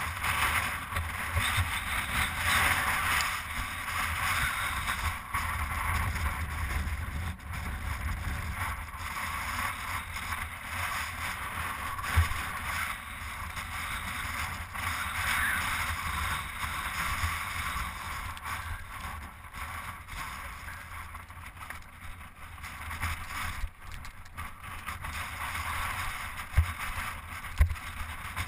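Wind buffeting the camera's microphone during a mountain-bike ride over a rocky path, a steady rumbling rush, with a few sharp knocks from the bike over rocks about twelve seconds in and twice near the end.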